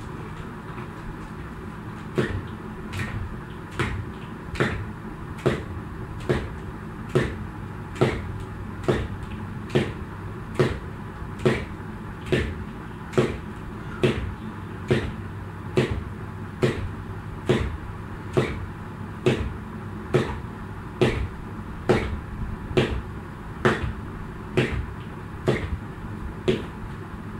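A jump rope slapping the floor in a steady rhythm, a sharp tick a little more than once a second, starting about two seconds in, over a steady low hum.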